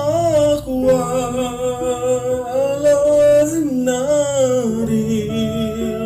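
A man singing a slow Arabic devotional song (nasheed) in long, drawn-out notes that waver and bend in pitch.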